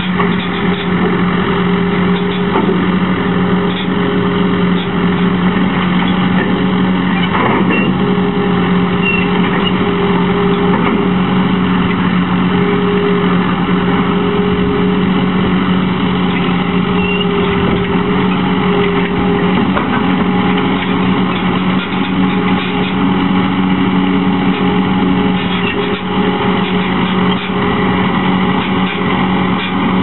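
Mustang MTL25 compact track loader's engine running steadily at a constant pitch as the machine climbs the ramps and drives onto a gooseneck trailer.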